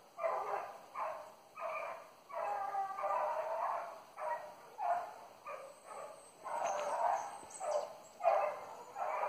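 Hunting dogs baying: a run of drawn-out, pitched barks, a little more than one a second, some calls held for nearly a second.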